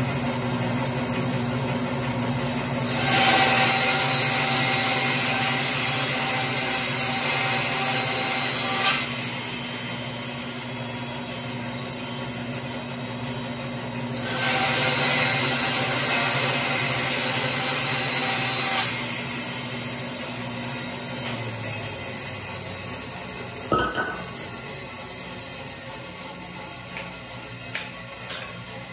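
Jet JWBS-14SFX 14-inch bandsaw running, its 3 TPI, 3/4-inch blade making two cuts through scrap wood, each lasting about five or six seconds. The motor hum then stops, followed by a single knock.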